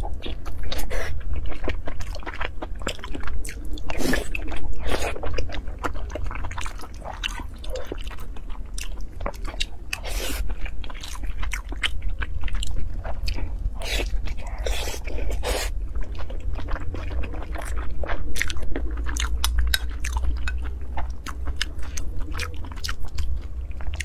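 Close-miked chewing of soft red-braised pork belly and rice: a dense, irregular run of wet mouth clicks and smacks, over a steady low hum.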